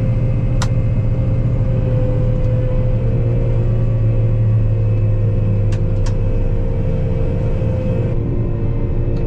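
Combine harvester running steadily: a constant low drone of engine and machinery with a steady whine over it, and a few light clicks.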